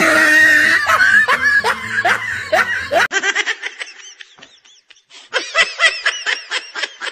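Laughter: about three seconds of dense, overlapping laughing, then after a sudden change a rapid run of short, evenly spaced ha-ha-ha pulses that pause briefly and start again.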